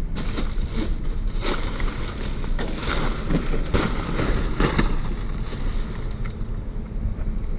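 Rustling and knocking of trash and packaging being moved around by hand in a dumpster, irregular and crackly, over a steady low rumble.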